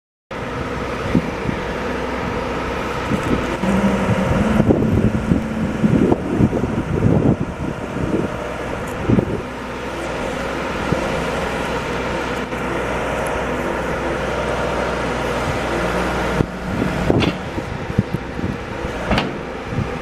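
John Deere backhoe loader's diesel engine running steadily, with a higher tone rising in it at times as the backhoe works. Clusters of knocks and clunks from the backhoe arm and bucket come between about four and nine seconds in and again near the end.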